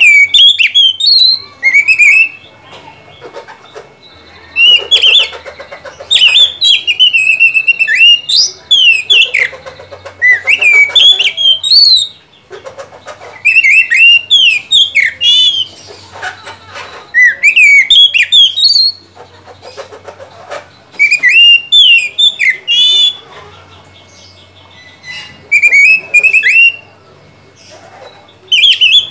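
Oriental magpie-robin (kacer) singing loud, varied whistled phrases with quick rising and falling notes, in bursts of a second or two separated by short pauses.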